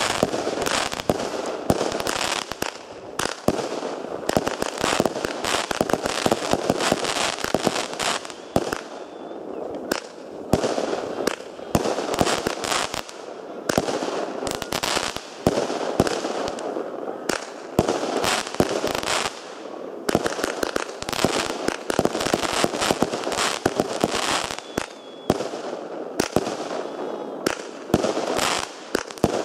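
Fireworks going off without a break: a dense run of sharp cracks and bangs, many overlapping, over a steady crackle.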